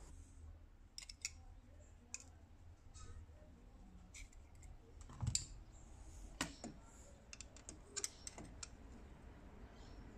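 Faint, scattered clicks and light knocks of tools and parts being handled on a workbench, over a low steady hum. The loudest knock comes a little past the middle.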